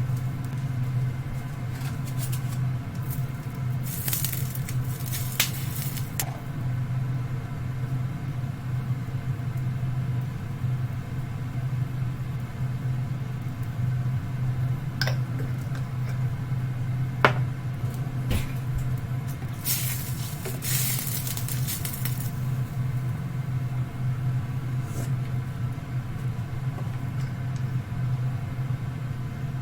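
Kitchen cooking sounds: a steady low hum with a few light clinks, and two brief bursts of hiss, a few seconds in and again about two-thirds through.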